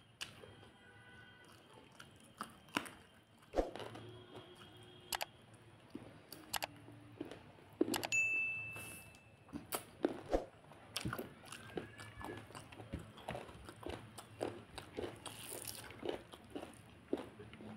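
Close-up eating sounds of rice and chicken curry eaten by hand: chewing, wet mouth clicks and smacks, and fingers mixing rice on the tray. About eight seconds in, a short electronic notification ding rings out.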